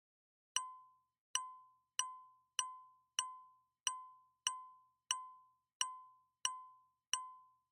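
A clean electronic ding tone repeating evenly, about one and a half times a second, eleven times; each ding starts sharply and dies away within about half a second.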